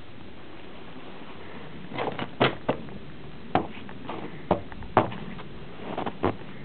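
Footsteps crushing fresh, deep snow: a series of loud, irregular crunches that begin about two seconds in.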